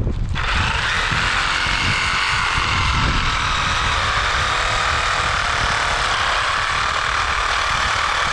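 Cordless reciprocating saw with a pruning blade running steadily through a tree limb, a constant motor whine over the rasp of the blade, stopping abruptly near the end.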